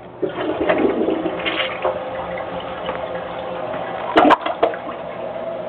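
New RONA two-piece dual-flush toilet flushing: a sudden rush of water into the bowl just after the start, easing into steady running water with a steady tone. Two sharp clicks about four seconds in.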